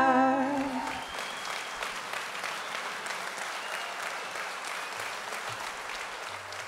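The final held note of two women singing with acoustic guitars ends about a second in. Then an audience claps steadily.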